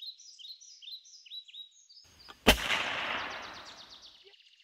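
Birds chirping in short, repeated falling notes. About two and a half seconds in comes a single sharp gunshot-like bang with a long echoing tail that fades over nearly two seconds, while a high rapid bird trill carries on underneath.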